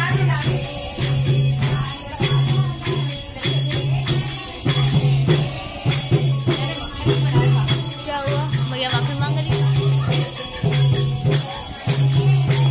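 Devotional bhajan music at a kirtan: steady jingling hand percussion over a low note that pulses on and off about once a second, with singing coming in now and then.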